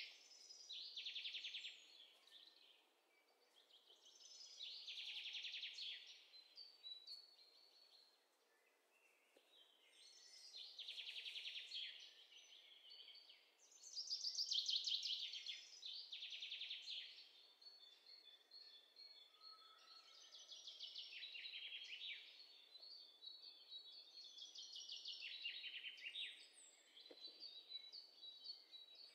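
Faint birds-chirping sound effect: songbirds singing in phrases of rapid chirps and trills a second or two long, with short pauses between them.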